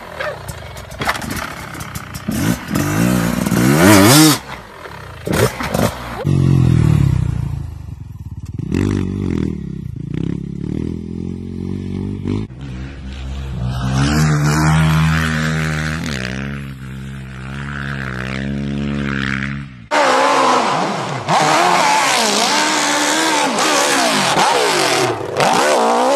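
Dirt bike engines revving in a run of short separate clips. The pitch rises and falls sharply at first, then runs steadier in the middle, and ends with about six seconds of loud, high revving.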